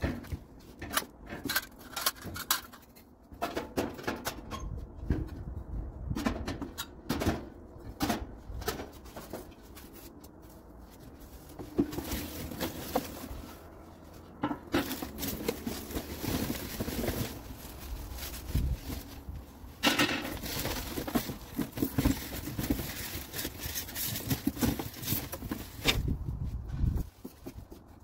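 Irregular knocks, clicks and clatter from handling grill parts during assembly, with stretches of rustling.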